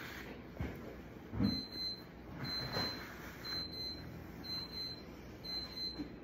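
Cloth surgical gown being handled and folded on a steel table, rustling with a few soft thumps, while an electronic beeper sounds a high-pitched beep about once a second from about a second and a half in.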